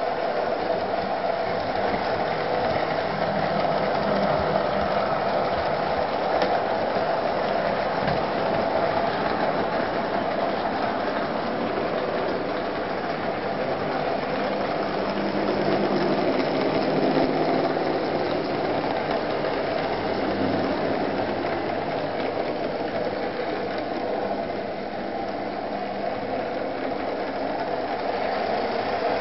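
Model trains running on a layout: a steady whirring of small electric motors and gears with a rattling of wheels on the track.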